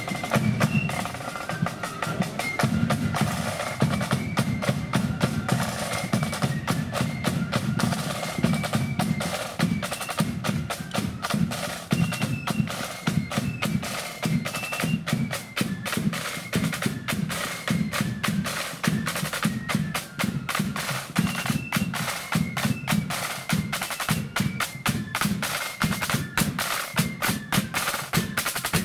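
Marching flute band playing: snare drums beating fast, dense patterns and rolls over a bass drum, with the flutes' high tune stepping up and down above the drums.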